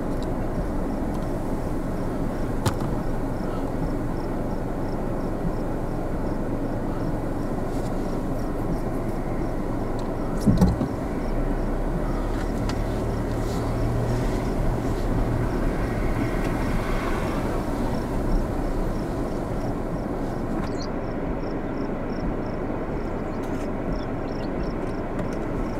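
Storm wind blowing across the microphone, a steady low rushing noise, with one short thump about ten seconds in.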